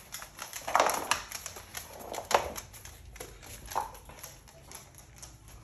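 Footsteps on a hard floor: a run of light, quick ticks like a dog's claws clicking on laminate, with a few louder scuffs about one second and two and a half seconds in.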